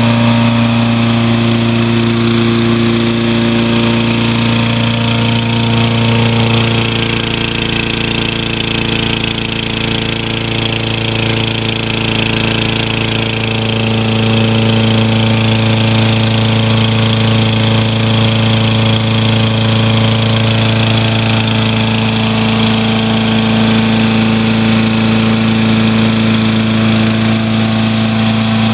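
Tecumseh 6.5 hp GTS single-cylinder four-stroke engine on a Toro Recycler walk-behind mower running steadily, its tone shifting slightly a few seconds in before settling again. It is running on a newly fitted aftermarket replacement carburetor.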